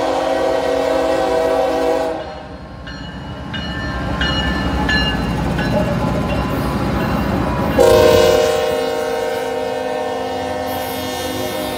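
Union Pacific diesel freight locomotive horn sounding a loud chord that cuts off about two seconds in. The locomotives then rumble past close by, with a few short high ringing tones. The horn starts again suddenly and loudly about eight seconds in and holds as the intermodal train keeps rolling by.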